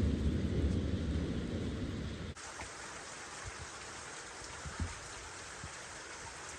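Low rumbling thunder that cuts off abruptly about two seconds in, followed by a steady hiss of rain with scattered drips.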